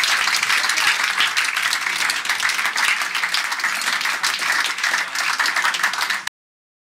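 A roomful of diners applauding, many hands clapping at once in a dense, steady patter. The applause cuts off abruptly near the end.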